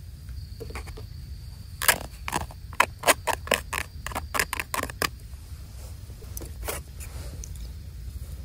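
Plastic packed-rice tray being handled as cooked rice is tipped out of it into a metal bowl: a quick run of about a dozen sharp clicks and scrapes over some three seconds, then only a steady low rumble.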